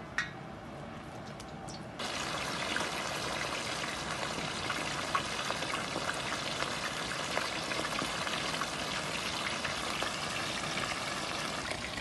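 Hot oil frying in a tractor plow disc. For the first two seconds a quieter bubbling with a few pops, then a loud, steady sizzle full of small crackles as whole mojarras deep-fry.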